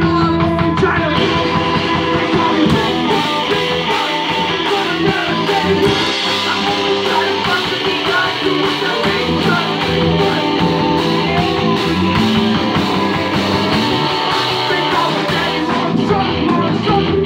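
Live rock band playing a song: distorted electric guitars and drums with a male lead vocal sung into the mic, loud and continuous.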